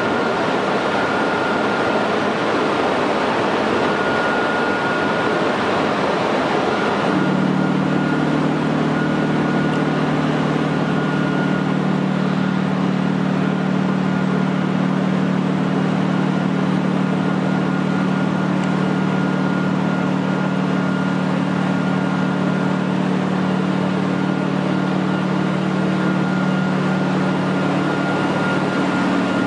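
Stationary electric locomotive's cooling blowers and auxiliary machinery running steadily, with a constant high whine. About seven seconds in, a low steady hum joins in and holds.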